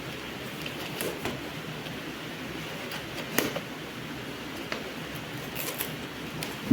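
A few scattered light clicks and taps over a steady background hiss, from handling a Bluetooth keyboard and its packaging.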